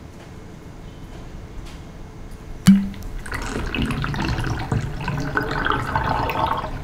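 A sharp click about three seconds in, then bathwater running down a bathtub plughole, steady to the end.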